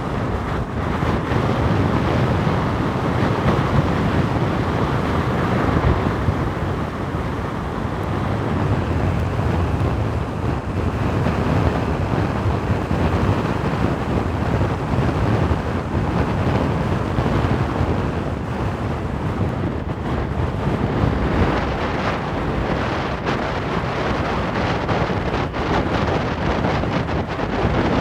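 Strong wind blowing across the phone's microphone, a steady rushing noise that swells and eases slightly with the gusts.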